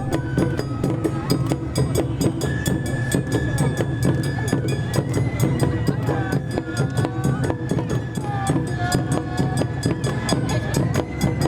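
Japanese summer-festival music: a high flute holding long notes and stepping between them, over fast, dense drumming.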